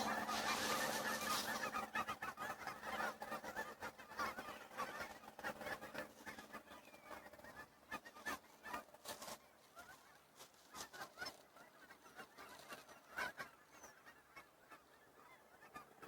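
A flock of birds calling, many short calls overlapping densely for the first few seconds, then thinning to scattered calls.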